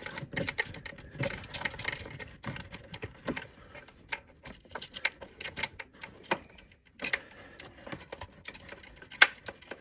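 A 12 mm wrench clicking and tapping against the throttle-cable fittings of a GY6 scooter carburetor as the cable nuts are loosened: irregular light metal clicks, with a brief drop-out about seven seconds in.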